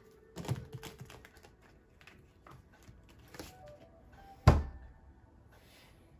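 Tarot cards handled on a tabletop: a quick run of light taps and clicks, then one sharp knock about four and a half seconds in, as of a deck or card set down on the table.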